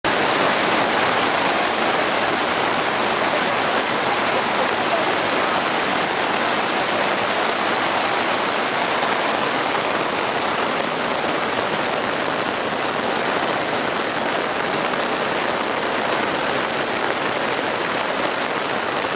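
Storm rain falling steadily, a dense, even hiss that holds at the same level throughout.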